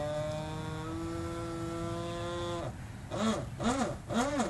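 An animal's calls: one long pitched note held for about three seconds, then short rising-and-falling calls repeating about twice a second.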